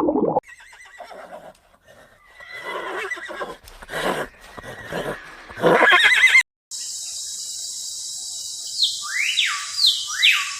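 A horse neighing: several shorter calls build to one loud whinny about six seconds in. After a sudden cut, a steady hiss with a few short sweeping chirps.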